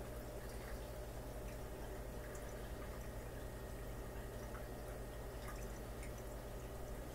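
Steady hum of aquarium equipment with water trickling, and scattered faint clicks and drips.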